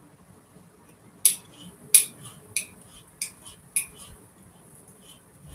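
Sharp metallic clicks from the mechanism of a Singer sewing machine being worked by hand. There are five loud clicks about two-thirds of a second apart, with fainter ticks between and after them.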